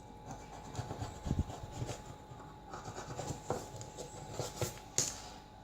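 Light, irregular scraping and rubbing on a phone's frame as its edge is cleaned, with small ticks in between, over a faint steady tone.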